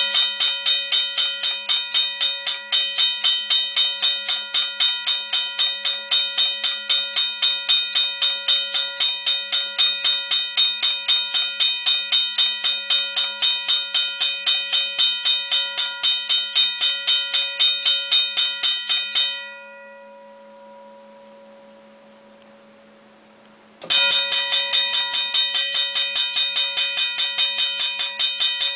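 Griswold railroad crossing bell ringing with rapid, evenly spaced electric strokes, about four a second. About two-thirds of the way in, the strokes stop and the ring fades, leaving a faint hum. A few seconds later it starts again, louder: the first test run is on 9 volts and the second on 12 volts.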